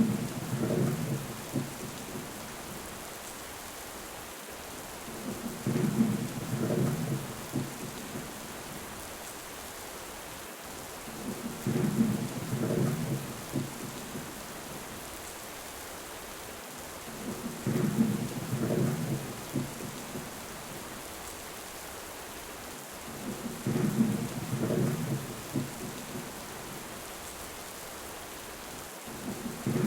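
Steady rain falling, with a low thunder rumble rolling in about every six seconds, each lasting about two seconds.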